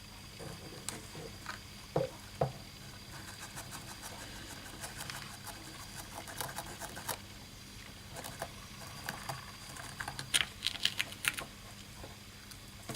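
Small plastic scoop scraping and tapping through toy cat-litter granules in a plastic litter tray, with a light patter of grains and scattered faint clicks: clumps being scooped out and dropped into a little bin. A few sharper ticks come about two seconds in, and a busier run of clicks near the end.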